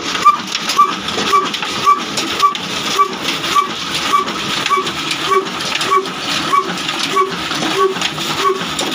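Old Ruston Hornsby diesel engine running steadily, turning its flywheel and belt pulley, with a regular beat of about two and a half strokes a second over a hissing mechanical clatter.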